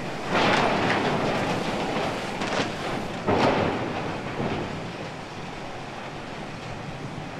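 Heavy machinery rumbling and rattling as it clears burnt debris, with two loud swells about a second and about three seconds in, then easing to a steady rumble.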